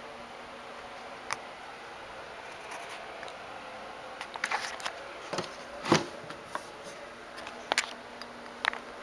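Handling noises: scattered short clicks, knocks and rustles, loudest about six seconds in, over a steady faint hiss.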